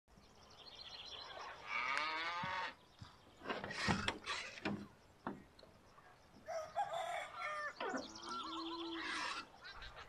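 Domestic chickens calling: several separate clucking and crowing calls, the first longer one about two seconds in and a run of calls in the second half.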